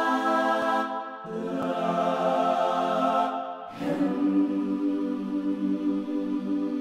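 Logic Pro X's 'South African Singers' sampled choir instrument holding sustained sung chords, shaped to sound like voices singing 'Elohim'. The chord and vowel change about a second in and again near four seconds.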